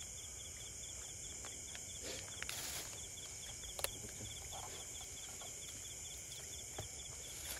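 Insects chirping: a steady high trill with a rapid pulsed chirp, several pulses a second, over it. A brief rustling noise comes about two and a half seconds in and a sharp click near four seconds.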